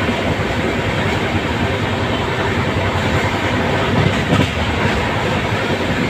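Passenger train running at speed, heard from inside the moving coach: a steady, loud running noise of wheels and wind, with a slight swell about four seconds in.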